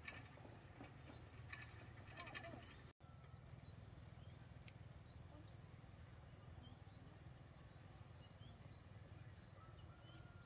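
Near silence with a faint steady low hum. After a cut about three seconds in, a faint, rapid, evenly spaced high-pitched ticking continues, and a few faint short high calls come in the first seconds.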